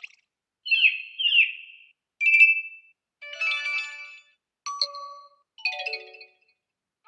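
Xiaomi 14 phone alert tones playing one after another, each lasting about half a second to a second with short gaps between them. They go from a pair of quick gliding chirps to a brief two-note beep, a chiming chord, a short tone, and a falling run of notes near the end.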